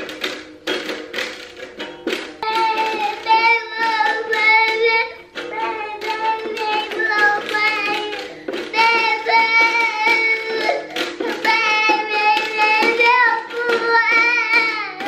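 A toddler singing several drawn-out, wavering phrases while strumming and tapping a small guitar.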